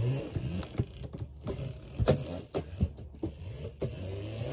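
Small electric mini dirt bike (MX125) being ridden for wheelies: its chain-driven electric motor hums, the pitch rising and falling with the throttle, and it is broken up by repeated sharp knocks as the bike bumps and lands.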